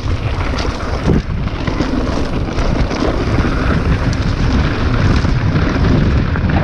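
Wind buffeting a GoPro's microphone during a fast mountain-bike descent, over the rumble of knobby tyres on a dirt trail and short rattles and knocks from the bike over rough ground.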